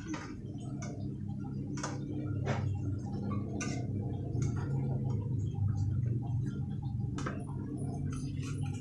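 Scattered light clicks and taps of a metal utensil against the wok and plate as fried tofu pieces are lifted out, over a steady low hum.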